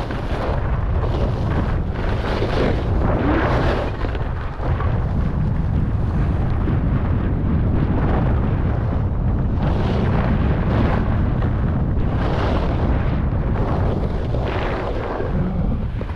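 Wind rumbling on the microphone of a skier going downhill, with the hiss and scrape of skis carving packed snow, swelling on each turn every one to two seconds.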